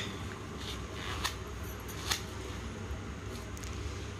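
A deck of playing cards being shuffled by hand: a few short, crisp snaps, the loudest about one and two seconds in, over a faint steady low hum.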